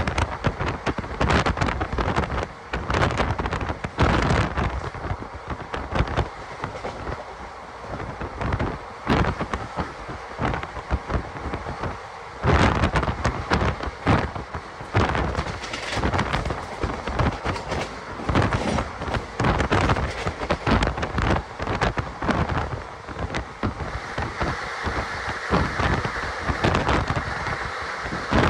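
Passenger train running, heard on board: a steady rumble and rush with dense, irregular knocks and clatter from the running gear.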